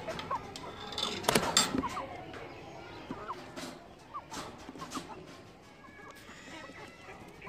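Young Aseel chickens clucking and peeping in short, scattered calls, with a few sharp knocks about a second in.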